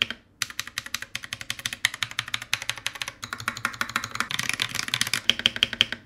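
Fast, continuous typing on a mechanical keyboard fitted with stock, unlubed Akko Lavender Purple tactile switches (50 g tactile force), starting a moment in.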